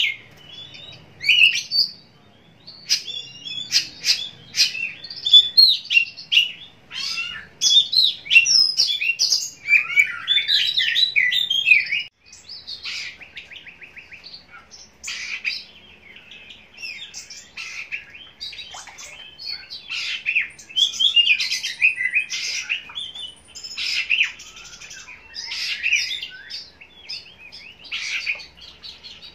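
Oriental magpie-robin (kacer) singing a fast, varied song of whistles, chirps and sharp clicks, dropping in level about twelve seconds in.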